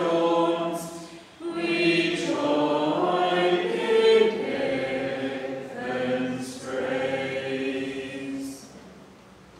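Voices singing the closing lines of a Lenten hymn, the last note ending about eight and a half seconds in.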